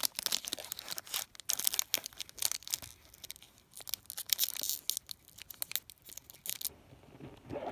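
Foil Pokémon TCG booster-pack wrapper crinkling and crackling as fingers work at tearing it open, dying down near the end.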